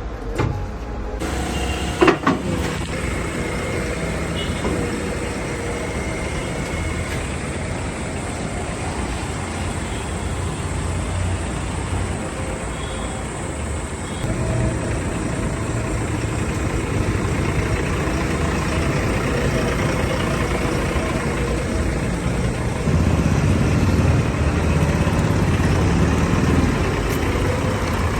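JCB 3DX Plus backhoe loader's diesel engine running steadily, with one sharp knock about two seconds in. The engine grows louder about halfway through and again near the end.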